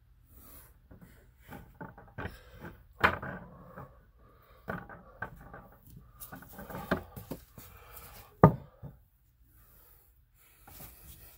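Handling noises on a weathered wooden board: rubbing and irregular knocks and taps as window screen is pressed onto the wood and an aerosol can of spray glue is picked up and moved. The loudest is a single sharp knock about eight and a half seconds in, typical of the can being set down on the wood.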